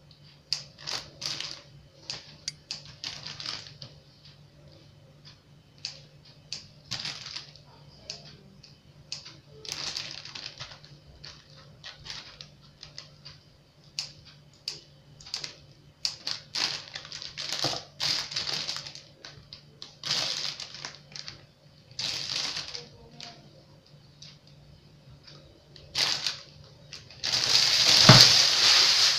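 Scissors snipping soft white bread into small cubes, an irregular run of short crisp snips, with the plastic bread bag crinkling as it is handled. Near the end comes a louder stretch of bag rustling.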